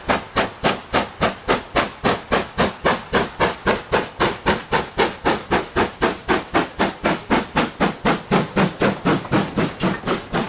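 GWR Hall class steam locomotive No. 4936 working hard, its exhaust chuffing at a steady rhythm of about four beats a second as it approaches and passes close by.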